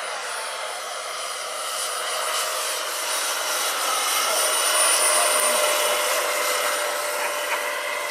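Turbine-powered scale model CH-46 Sea Knight tandem-rotor helicopter flying past: a high turbine whine over the rotor noise. It grows louder to a peak about five seconds in, then eases off a little.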